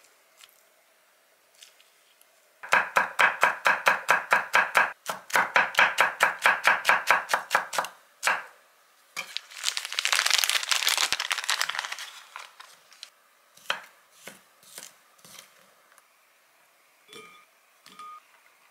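Kitchen knife chopping quickly on a wooden cutting board: two runs of rapid, even strokes with a short break between. A plastic food package then crinkles for a few seconds as it is opened, followed by a few light knocks and taps on the board.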